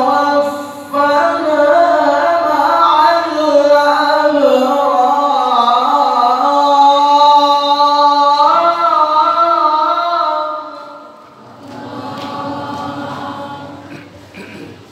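A male qari reciting the Quran in the melodic tilawah style into an amplified handheld microphone: long, ornamented held notes that waver up and down. The recitation ends about ten and a half seconds in, leaving only a quieter background murmur.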